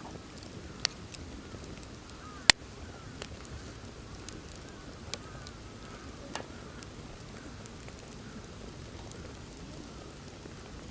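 Wood campfire crackling, with scattered sharp pops, the loudest about two and a half seconds in, over a steady low rush of wind.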